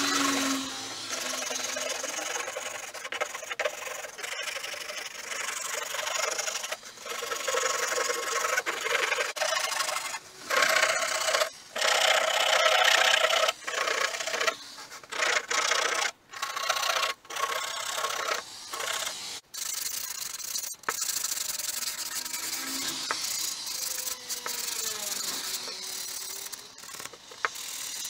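Repeated abrasive rubbing strokes of hand work on the axe, in short stretches broken by frequent abrupt cuts.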